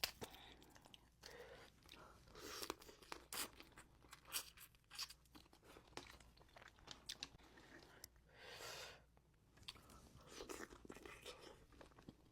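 A person eating close to the microphone: crunching bites and chewing, with many short wet clicks and a few longer smacking or slurping sounds.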